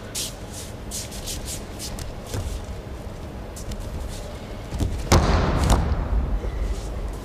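A person thrown in an aikido technique hits the mat in a breakfall: one heavy thud about five seconds in, followed by about a second of rustling noise. Faint scattered clicks sound over a steady background before it.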